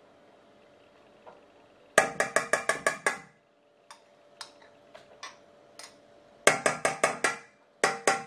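A metal teaspoon knocked rapidly against a hard rim to shake off minced garlic: two quick runs of about seven sharp ringing taps, at about two seconds and six and a half seconds, a pair more near the end, and a few light scraping clicks of the spoon in the jar between.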